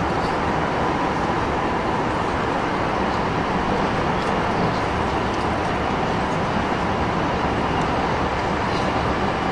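Steady cabin noise of an Airbus A380 on approach, heard at a window seat over the wing: an even rush of engine and airflow noise from its Rolls-Royce Trent 900 engines, with the flaps extended.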